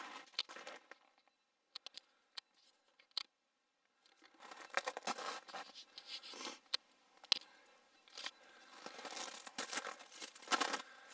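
Footsteps crunching in crusted snow: irregular crunches and crackles that stop for about three seconds about a second in, then come back and grow denser toward the end.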